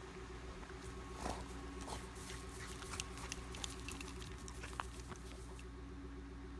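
A dog's claws clicking and scratching as it moves about, many small irregular ticks over a steady low hum.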